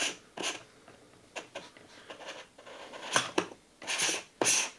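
Metal threads of a variable ND filter scraping and clicking as the filter is twisted by hand onto a camera lens, in a string of short rasps, the loudest about three seconds in and near the end.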